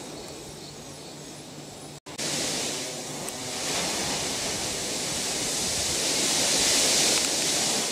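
Strong gusty wind blowing as a steady rushing hiss. It drops out for a moment about two seconds in, comes back louder, and swells to its strongest near the end.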